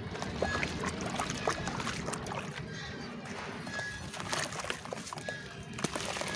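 Dry red clay dirt crumbling in water: a steady crackle of many small clicks and pops over a soft watery slosh.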